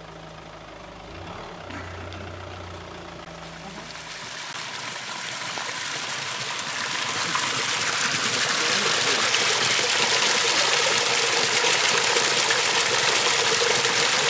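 Spring water pouring from a spout and splashing into a wooden log trough, growing steadily louder over the second half and ending abruptly. A low steady hum sits under the first few seconds.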